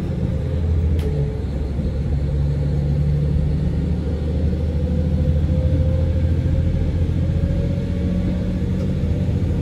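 Cabin sound of a diesel local railcar running along the line: a steady low engine and wheel rumble with an even hum, and one light click about a second in.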